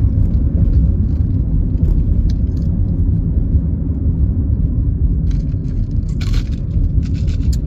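Steady low road and engine rumble inside a moving car's cabin, with a few short crackling noises between about five and seven and a half seconds in.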